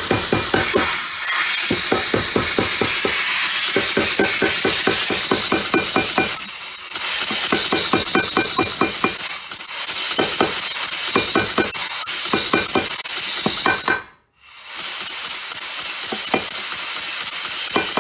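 Bulldog air power hammer pounding a red-hot half-inch steel bar between its dies in rapid, evenly repeated blows, over a loud hiss of exhausting compressed air. It eases off briefly about six and a half seconds in, and stops for a moment about fourteen seconds in before starting up again.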